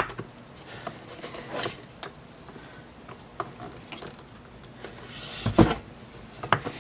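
Upper burr carrier of a Baratza Vario coffee grinder being lined up with its tabs and pressed into the housing by hand: scattered clicks and light knocks of the parts. There is a sharp click at the start and a louder cluster of knocks near the end.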